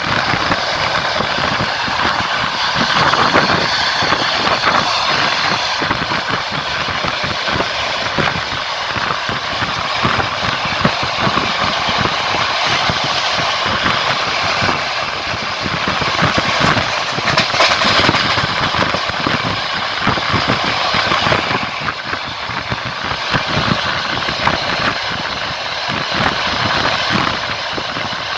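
Passenger train running along the line, heard from aboard: a steady rush of wheel and rail noise over a constant, uneven rattle of the wheels on the track.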